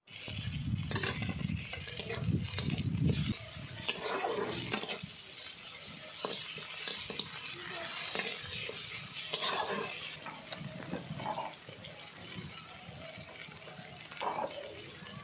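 Steel spatula stirring and scraping onion, garlic, tomato and ginger frying in a little oil in a black iron kadai: irregular scrapes and knocks of the spatula against the pan over a soft sizzle, as the masala base is sautéed.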